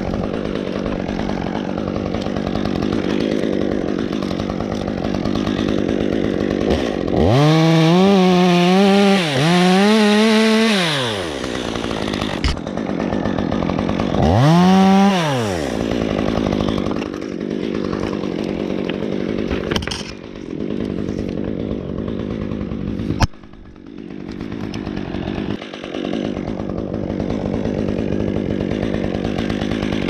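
Chainsaw idling in a climber's hands, revved up three times: twice in quick succession about a quarter of the way in, then once more about halfway.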